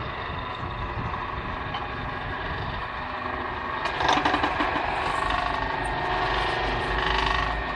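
The 2.2 kW electric motor of a rebar cutting and bending machine running steadily through its V-belt drive and gearbox. About four seconds in it grows louder and rougher as a 16 mm steel reinforcing bar is worked in the cutter.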